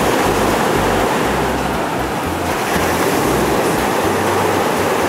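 Shallow surf washing onto the beach, a steady noisy wash, with gusty wind rumbling on the microphone.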